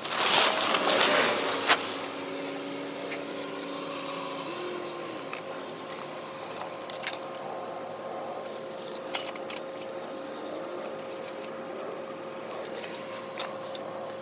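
Woven plastic tarp rustling and crinkling as it is pulled off, loudest in the first second and a half, with a sharp snap near its end. After that a faint steady drone holds, with a few light clicks and taps.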